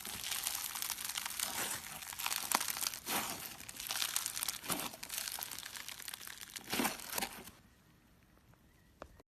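Slime being squeezed and worked by hand, giving a dense crackling and crinkling with louder snaps; it stops about seven and a half seconds in.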